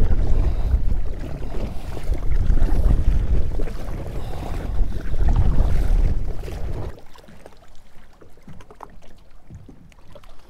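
Wind buffeting the microphone on a paddled kayak, with water splashing and lapping against the hull on choppy water. The loud wind rumble cuts off about seven seconds in, leaving quieter lapping water.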